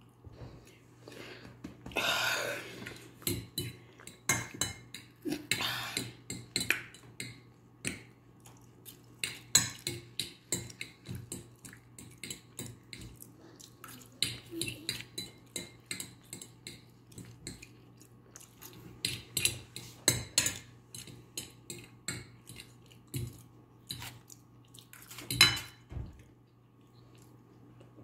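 Metal fork clinking and scraping against a ceramic bowl in quick, irregular strokes while the last of the macaroni is scooped up, the loudest clink a couple of seconds before the end. A low steady hum runs underneath.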